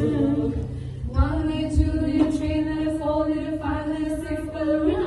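Group of voices singing a slow song in long held notes.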